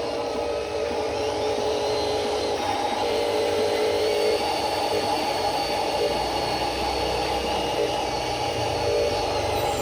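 Electric motors and gearboxes of radio-controlled construction models running with a steady whir and a high gear whine.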